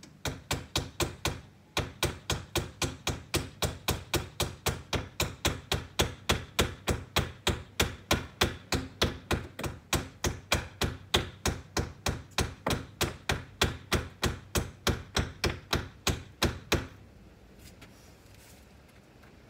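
Hammer driving nails into a window frame: a long run of rapid, even blows at about four a second, with a short break about two seconds in. The blows stop a few seconds before the end.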